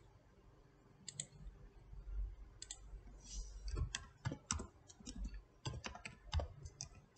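Computer keyboard typing and mouse clicks: short, sharp clicks, a few spaced out at first, then a quicker run of them in the second half as numbers are entered into spreadsheet cells.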